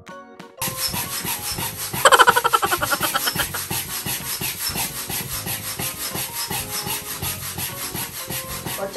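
Manual air pump being worked to inflate a vinyl inflatable pool: a fast, even run of rasping strokes, with a louder squeaky stretch about two seconds in.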